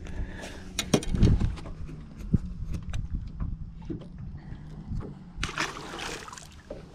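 Sounds aboard a small fishing boat: a steady low hum with several sharp knocks and clunks, the loudest about a second in. A brief rushing noise comes about five and a half seconds in.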